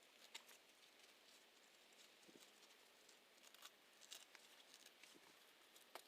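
Near silence, with faint, irregular small clicks and ticks scattered through it.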